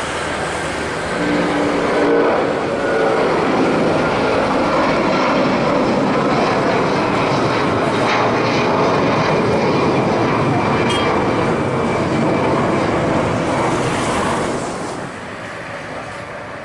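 Jet engines of a climbing Airbus A330-343 (Rolls-Royce Trent 700) running at takeoff power, a loud steady noise that swells about a second in. Near the end it drops suddenly to quieter, more distant jet engine noise.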